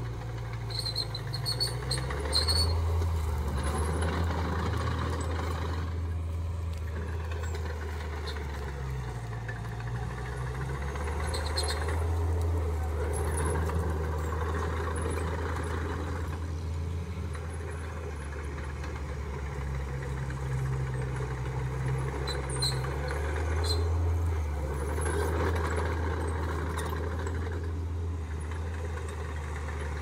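Diesel engine of a small crawler bulldozer running steadily as it pushes soil, its note swelling louder and easing off about three times as it works, with a few faint high clinks.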